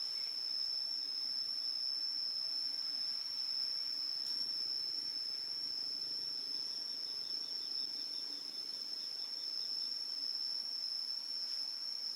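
Steady, high-pitched insect drone from a field, unbroken throughout. A second, lower insect call of quick pulses, about four a second, joins in the middle for a few seconds.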